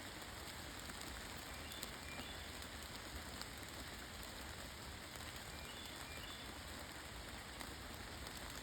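Steady, faint background hiss with scattered light ticks, like rain falling on a surface, and a few faint, short high chirps.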